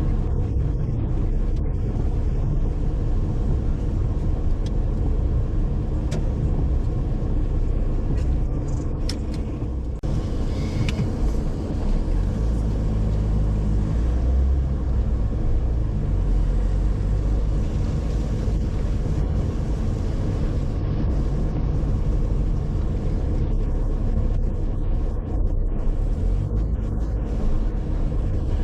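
Car driving along: steady low rumble of engine and road noise, with a few faint brief clicks.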